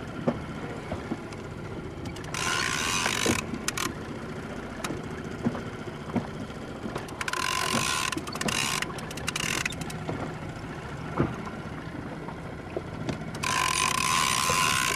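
Big-game fishing reel working against a heavy amberjack on the line: three bursts of mechanical whirring with a steady whine, with scattered small clicks between them.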